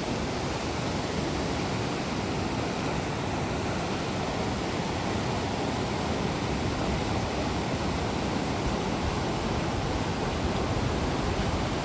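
Stream water rushing and splashing, a steady even hiss without any break or change.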